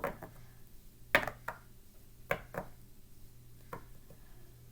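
A series of sharp taps, mostly in pairs about a third of a second apart, coming every second or so.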